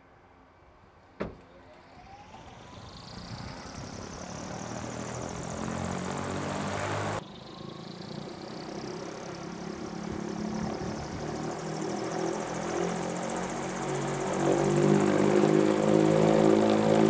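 Electric propulsion rig spinning up a propeller: a click about a second in, then a rising whine under growing propeller noise that keeps getting louder. About seven seconds in the sound breaks off abruptly and starts again at a lower level, then builds once more.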